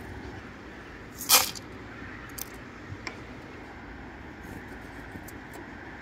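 Chopped nuts tipped onto a wooden bird-feeder tray: one short scattering clatter about a second in, then a few light clicks as pieces settle, over a steady background noise.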